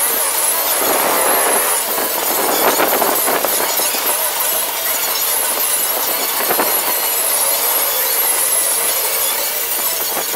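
Sandpaper scraping over a fiberglass boat hull: a steady, rough rasping with a thin wavering high squeal on top.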